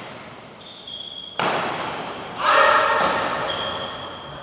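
Badminton rally in an echoing hall: two sharp racket hits on the shuttlecock about a second and a half apart, with high shoe squeaks on the court floor. Between the hits comes a short, loud shout from a player.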